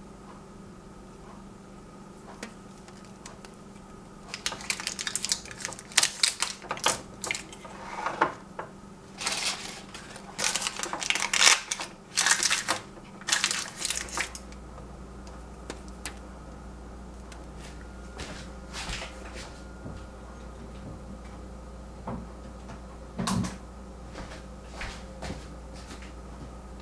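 Paper crinkling and rustling as it is pressed and folded over the tops of small glass jars, in a run of loud sharp crackles from about four seconds in to about halfway, then a few light clicks and a single knock.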